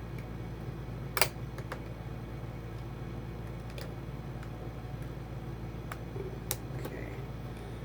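Sharp plastic clicks and snaps as a laptop's bottom cover is pried open with a plastic pry tool, two louder snaps about a second in and near the end, with fainter ticks between, over a steady low hum.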